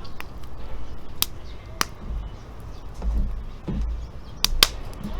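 Wood fire crackling in a steel fire pit: a few sharp, irregular pops over a low rumble.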